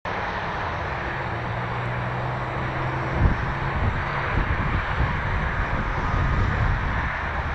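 Boeing 787-8 Dreamliner's jet engines running at low taxi power as the airliner rolls along the runway, a steady rushing hum. A low thump about three seconds in, after which wind gusts rumble on the microphone.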